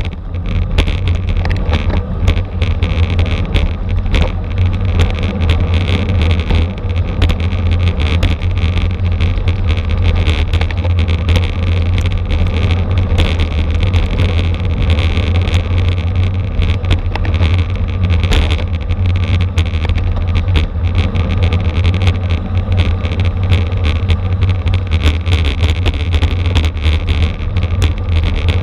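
Wind rushing over the microphone of a camera on a bicycle at racing speed: a loud, steady, deep rumble, with many short sharp clicks and rattles from the road.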